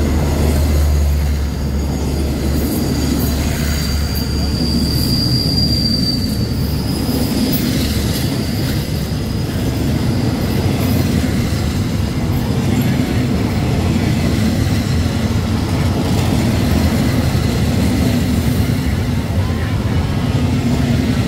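State Railway of Thailand passenger coaches rolling past along the platform: a steady rumble of wheels on rail, with a brief high squeal from the train about four to six seconds in.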